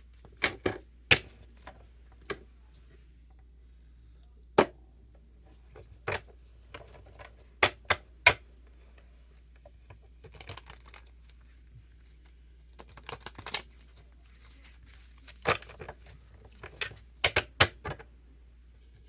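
Tarot cards being handled: rustling as they are shuffled and drawn, broken by sharp snaps and taps as cards are set down, coming in irregular clusters.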